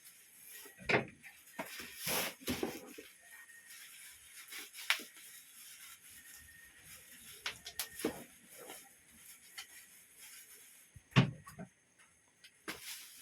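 Bubble wrap and plastic packaging being handled and pulled off a parcel: scattered crinkles, rustles and knocks, with the loudest thump about eleven seconds in.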